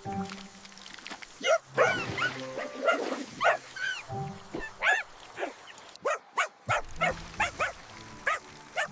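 A string of short cartoon puppy yips and barks, about a dozen scattered through the stretch, over gentle background music.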